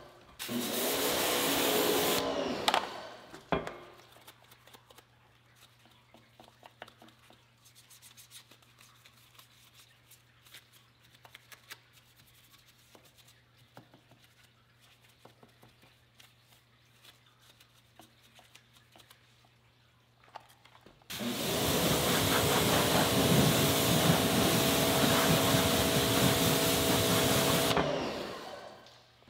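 Pressure washer spraying water at a car wheel, a steady hiss with a humming pump tone, in a short burst at the start and a longer burst of about seven seconds that stops near the end. Between the bursts comes the faint scrubbing and ticking of a small detailing brush working in the wheel spokes.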